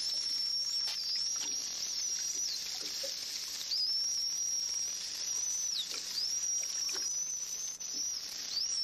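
Bottlenose dolphins whistling: a string of long, high whistles, each held at one pitch for a second or two and ending in a quick downward sweep, over a steady hiss.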